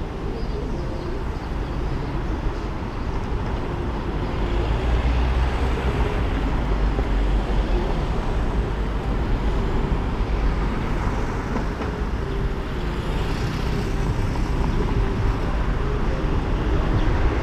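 Steady engine and road noise of a car driving through town traffic, growing louder from about four seconds in.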